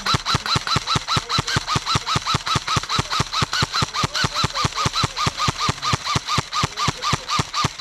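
Airsoft electric gun firing on full auto at a sluggish, even rate of about six shots a second, each cycle a click with a short whine from the gearbox motor. The battery is running flat.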